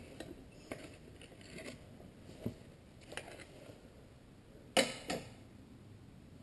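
Scattered light clicks and knocks of metal tools and parts being handled, with two sharper clanks close together about five seconds in.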